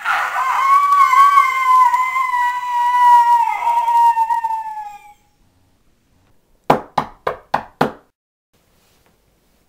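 A boy's long, high-pitched scream that slowly falls in pitch and trails off after about five seconds: a mock yell of pain from sitting on a tack. About two seconds later come five quick knocks on a door.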